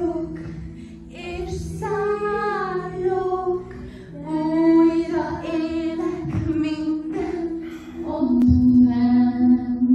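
A young woman singing solo into a handheld microphone: a string of long held notes that waver in pitch, ending on a loud low note held near the end.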